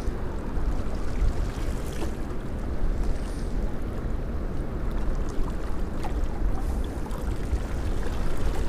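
Wind buffeting the microphone, a steady low rumble, over lake water washing against a concrete pier.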